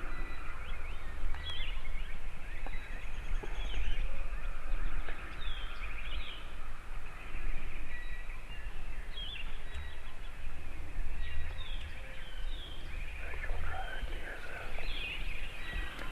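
Small woodland birds chirping and calling all through, many short chirps and quick sweeps, over a low rumble on the microphone.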